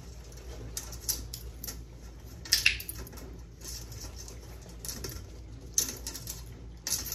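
Dog sniffing and snuffling with its nose in a stainless steel colander, with a few short, sharp bursts about 2.5 seconds in, near 6 seconds and near the end.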